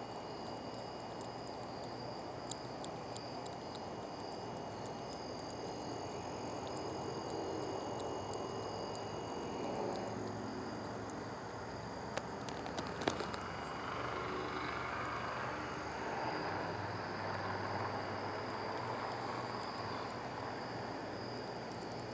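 Night insects, crickets, trilling steadily on several high pitches over a steady low rumble, with a few faint clicks.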